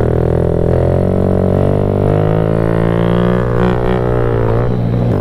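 Background music with a steady, droning bass line.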